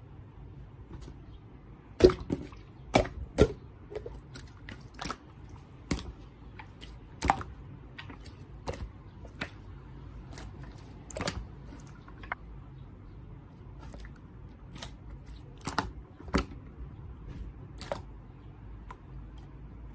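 Irregular sharp clicks and taps, roughly one a second and sometimes in quick pairs, over a faint steady low background.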